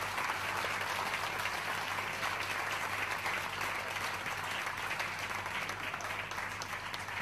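Large audience applauding: dense, steady clapping from many people.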